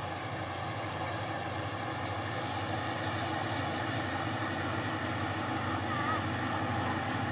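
Diesel locomotive engine of an approaching express train, a steady low drone that grows gradually louder as it nears.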